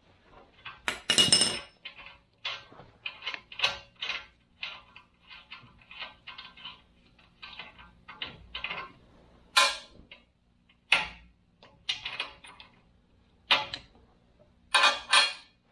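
Steel parts and a wrench clinking as a bolted-on steel spindle shell is taken apart: a long run of short metallic clicks, with a few louder clanks.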